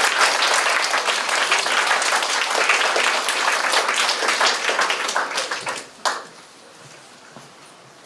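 Audience applauding with many hands clapping, dying away about six seconds in.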